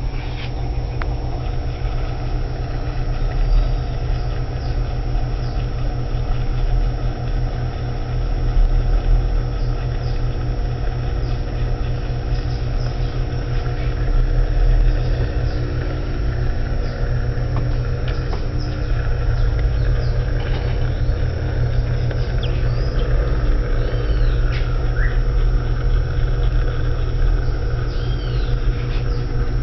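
Electrolux washing machine running in its rinse cycle: a steady motor hum over a low rumble, swelling a little louder now and then.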